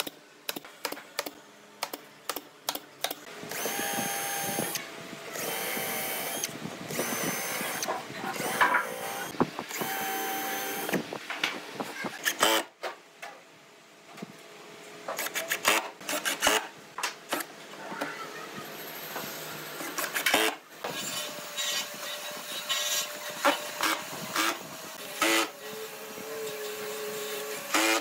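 A pneumatic nail gun fires a quick run of shots into pine boards. Then a drill drives screws in repeated bursts of steady motor whine, with knocks and clicks between the bursts.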